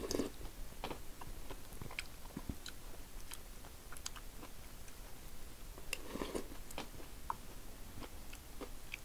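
A person chewing and sipping spoonfuls of ration soup, with many small scattered clicks from the mouth and spoon, and two brief louder slurps, at the start and about six seconds in. The soup was made with unheated water, so its small noodles are still hard.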